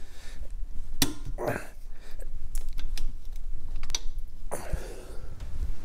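Socket ratchet wrench turning the kickstand bolt into the dirt bike's frame: irregular clicks from the ratchet and small metal knocks as the bolt is worked in.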